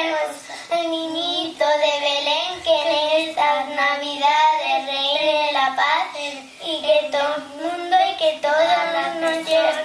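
Children singing a Christmas carol in Spanish: held, sung phrases with short breaths between them.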